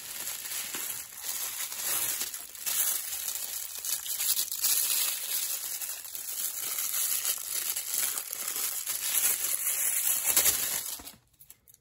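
Plastic bubble wrap and a thin plastic sleeve crinkling and rustling as a watch is unwrapped by hand, a continuous crackle with many small irregular crackles. It stops abruptly near the end.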